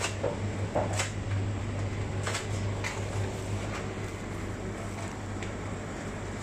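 Steady low hum of a grocery store's refrigerated display cases and ventilation, with a few scattered light clicks and knocks.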